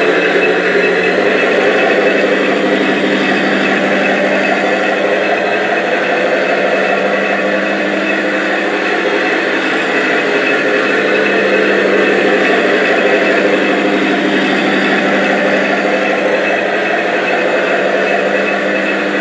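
Remote-control Max-D monster truck toy making a steady, unchanging engine-running sound.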